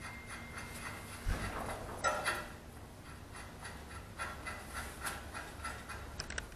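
Faint hand-work on the track-tensioning bolt of a tracked slope mower: light metal clicks and rubbing as the bolt is threaded in against the spring retainer, with a dull thump just over a second in.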